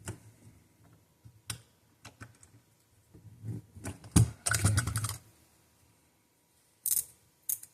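Small clicks and taps of hand tools and watch parts handled on a workbench while a watch crystal is being pressed back into its case. There is a dense run of clicks and knocks about four to five seconds in, and a few sharp clicks near the end.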